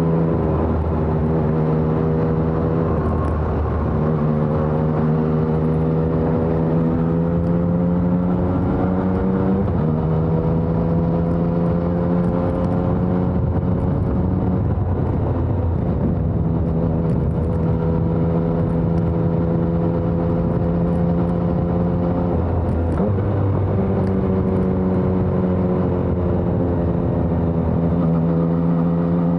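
2020 Yamaha XSR900's 847 cc inline three-cylinder engine running through a LeoVince Evo One full exhaust system while riding. Its pitch climbs slowly and drops suddenly several times, as the revs change through the gears.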